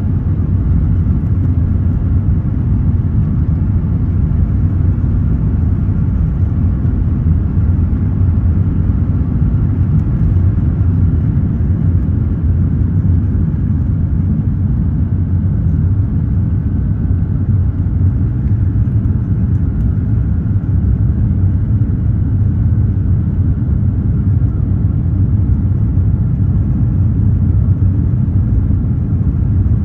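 Airliner cabin noise during takeoff in an Airbus A350-900: the Rolls-Royce Trent XWB engines at takeoff power make a loud, steady, deep rumble through the roll, liftoff and initial climb.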